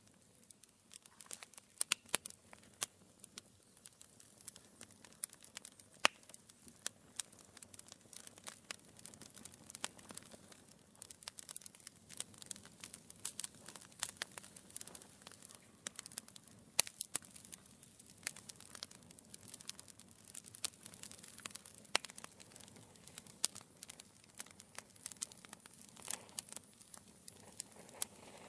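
Wood fire burning in a fireplace: logs crackling and popping irregularly, with sharp snaps scattered through a faint steady hiss.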